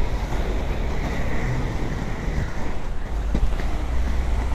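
Three-wheel inline hockey skates rolling on pavement, a steady low rumble from the wheels with wind buffeting the microphone and a couple of faint clicks.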